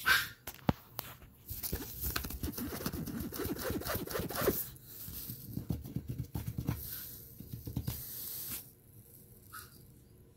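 Crinkling and rustling of a plastic playpen floor liner as a puppy shuffles and a hand rubs over it, with scattered sharp crackles, dying down about eight and a half seconds in.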